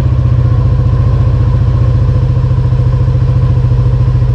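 Yamaha NMAX V2 scooter's single-cylinder four-stroke engine idling steadily at standstill, with an even, quick pulse. It runs with the genuine crankshaft position sensor refitted and the stock ECU map restored, the fault cured.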